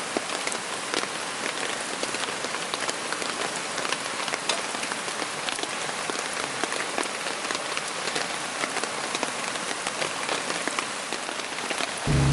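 Heavy downpour falling steadily, with many separate drop hits standing out from the hiss of the rain.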